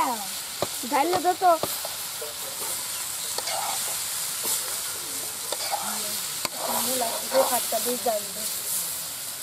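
Bele (scribbled goby) fish curry sizzling in a metal wok over a wood fire while a steel ladle stirs and scrapes it, with a few sharp clicks of metal on metal.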